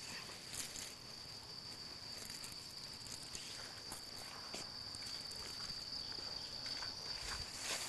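Steady high-pitched insect drone running unbroken, with faint rustling and light clicks over it.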